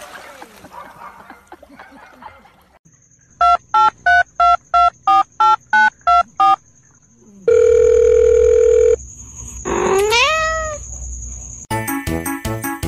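A quick run of about ten short electronic beeps, like phone keypad tones. Then a loud steady tone lasts about a second and a half, followed by a quick rising whistle-like glide. Music with a steady beat starts near the end.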